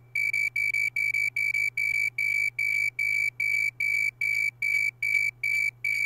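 Electronically synthesized snowy tree cricket chirps from a Raspberry Pi Pico's two cores: short bursts of one high-pitched tone, repeating evenly about two and a half times a second. The two cores' chirp trains are pulling back into synchrony after being deliberately knocked out of step.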